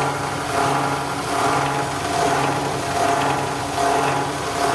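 Chili coarse crushing machine running steadily: a motor hum with a dense mechanical rattle that swells and eases roughly once a second.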